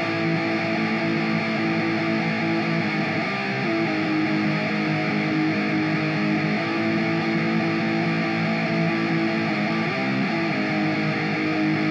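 Black metal recording: electric guitar playing sustained, ringing chords alone, without drums, entering suddenly and changing chord a couple of times.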